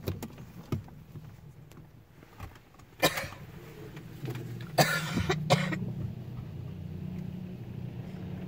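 Automatic car wash spray starting up against the car, heard from inside the cabin: a few short, sharp bursts of spray about three and five seconds in, over a steady low hum.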